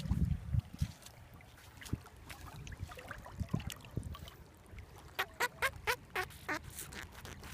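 An inflated puffer fish held in the hand giving a quick run of about seven short, squeaky croaks in under a second and a half, a little after halfway. Low bumps of handling noise come at the start.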